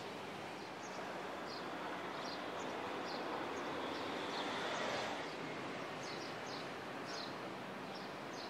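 Steady outdoor background noise that swells a little near the middle, with scattered faint bird chirps.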